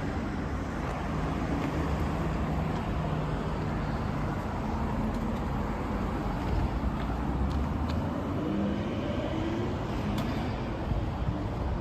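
Small engine of a Kubota TMA350 walk-behind tiller running, a steady low rumble whose pitch shifts a little past the middle as the engine speed changes.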